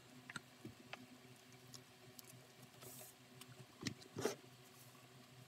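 Faint hand-handling sounds on a cutting mat: blue masking tape being peeled off a glued leather strap and a metal glue can being moved, heard as scattered light clicks and scratches with two louder scuffs about four seconds in.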